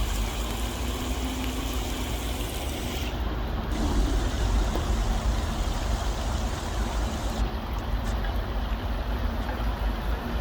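Steady rush of a shallow stream flowing, with a low rumble of road traffic beneath it.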